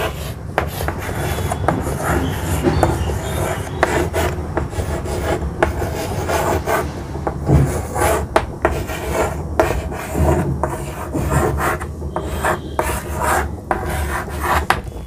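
Chalk writing on a blackboard: irregular scratching strokes with sharp taps as the letters are formed.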